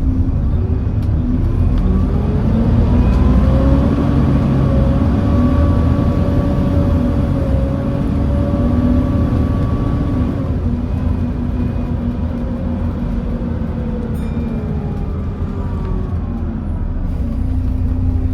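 Volvo B7TL bus's Volvo D7C diesel engine and driveline heard from on board, whining up in pitch as the bus gets going, holding steady, then dropping back after about ten seconds and starting to climb again near the end.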